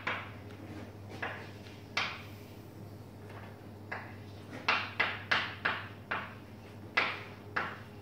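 Chalk tapping and scraping on a blackboard as an equation is written: a series of sharp taps, with a quick run of about five halfway through and several more near the end, over a steady low hum.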